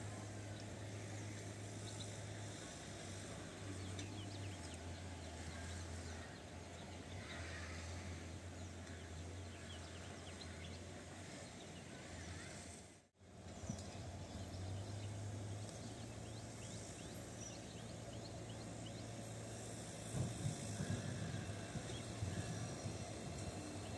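Faint railway-station ambience: a steady low hum with small birds chirping, cut by a brief drop-out about halfway. Near the end a low rumble grows a little louder as the diesel locomotive approaches.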